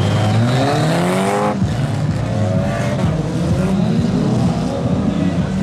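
Engines of several battered old production cars in a dirt-track stock car race, revving hard as they accelerate. The pitch climbs steeply for about a second and a half and then drops off abruptly, and more rising revs follow.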